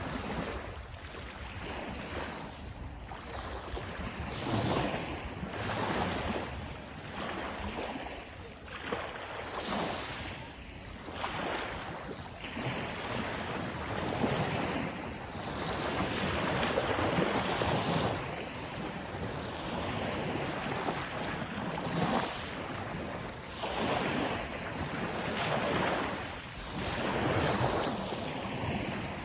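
Sea waves washing in, the rush of water swelling and ebbing every couple of seconds.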